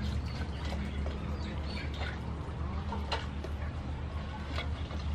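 Small birds chirping intermittently, with light clicks and splashes of crab pieces being rinsed by hand in a metal basin of water.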